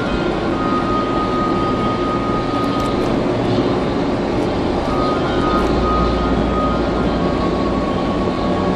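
Steady road noise of a vehicle driving at highway speed: a continuous engine drone with tyre and wind rush.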